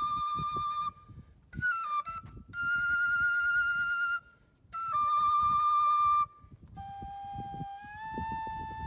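A wooden duct flute blown in long, steady single notes, one after another with short gaps, mostly on the same pitch. A short note near the two-second mark slides down, and the last note, from about seven seconds, is lower and quieter and steps up slightly about a second later.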